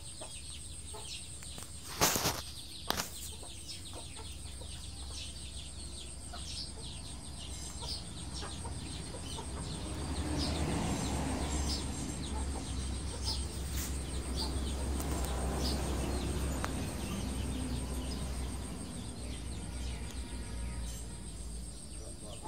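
Chickens clucking in the background, with two sharp knocks about two and three seconds in and a louder stretch of noise in the middle.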